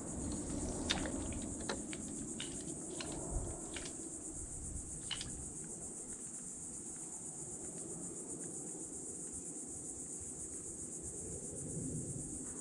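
Steady high-pitched insect buzz, with a few light clicks and taps in the first five seconds.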